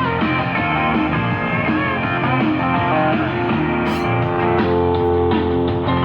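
Guitar-led rock music received over shortwave radio, band-limited and without clear vocals.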